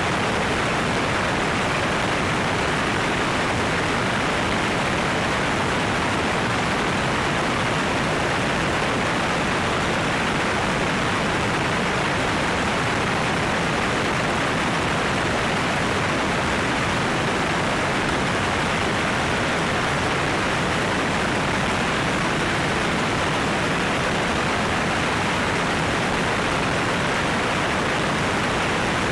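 Steady rush of airflow and engine noise from a light aircraft in flight, picked up by a camera mounted outside the airframe. It is an even, unbroken roar with no distinct engine note standing out.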